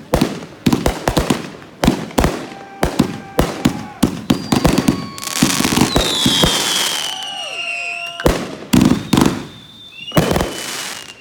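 Consumer fireworks going off in a finale: a rapid string of sharp bangs, then a few seconds of hissing with several whistles falling in pitch. More bangs and another falling whistle follow near the end.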